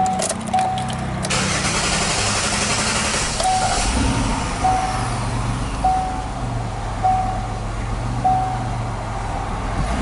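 Chevy Equinox engine being cranked by the starter for a couple of seconds, catching about four seconds in and then idling steadily, while a dash warning chime sounds about once a second. The engine is being restarted hot, with a fault the mechanic suspects is the crankshaft position sensor.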